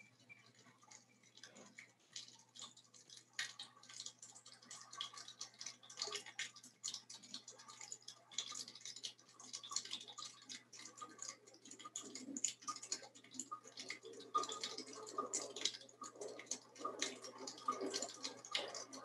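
Soundtrack of a video artwork: fairly faint, rapid, irregular clicking and ticking with a dripping, watery character. It thickens a few seconds in, and a lower, fuller layer builds in during the last few seconds.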